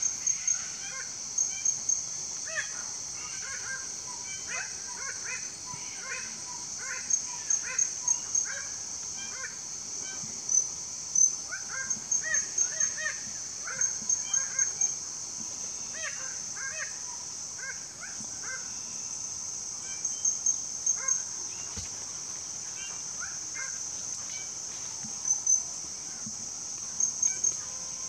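Male red bird-of-paradise calling during its courtship display: loud, harsh, honking notes in quick runs of several, repeated every few seconds. A steady high buzz runs behind them.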